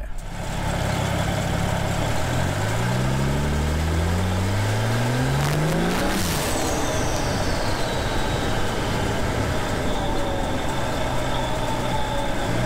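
BMW 435i's N55 turbocharged straight-six with an open carbon-fibre intake, accelerating hard with revs climbing steadily for several seconds. About six seconds in the revs drop suddenly with a brief whoosh, and a high whine falls away after it. Then it runs on at a steady cruise.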